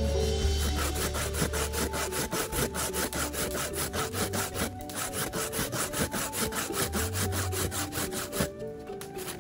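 Coconut flesh being grated by hand on a flat metal grater: quick, even rasping strokes, about four or five a second, with a brief break midway, stopping shortly before the end.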